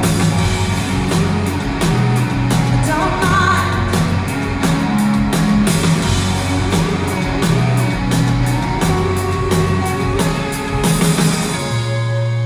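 Rock band playing live: electric guitars, keyboards and drums with singing. The drumbeat stops about a second before the end, leaving held chords ringing.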